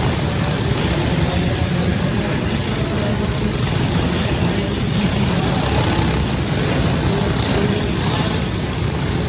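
Several go-kart engines idling together on the starting grid, a steady low drone with no revving.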